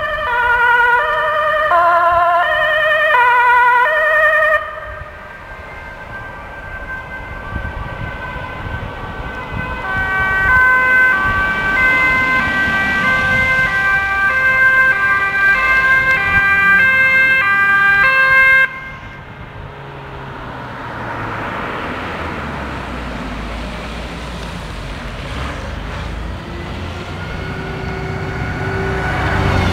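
Dutch ambulance two-tone siren, a high and a low note alternating as the vehicle passes on an emergency run. The sound breaks off suddenly about four seconds in and again near 19 s; after the second break a passing vehicle's tyre and engine noise is heard, and a siren comes in again near the end.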